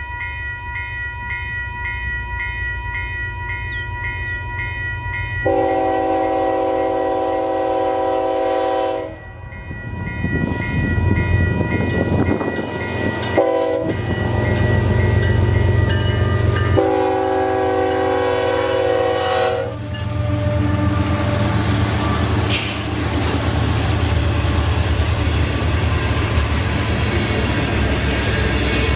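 Electronic railroad-crossing bell (a General Signal E-bell with Western-Cullen-Hayes internals) ringing about twice a second. An approaching freight train sounds its air horn: a long blast about 5 s in, a short one about 13 s in and another long one at about 17 s. The locomotives then rumble through the crossing and covered hopper cars roll past with wheel clatter and a sharp clank a little after 22 s.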